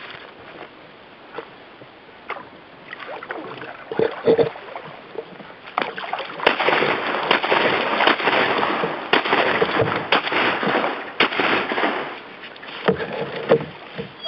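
Canoe paddling on a river: paddle splashing in the water with knocks on the canoe's hull. Fainter at first, then busier and louder from about six seconds in, with many sharp knocks.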